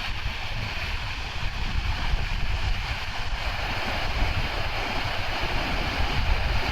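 Large waterfall, Akiu Great Falls, pouring steadily: a continuous rush of falling water with a strong low rumble underneath.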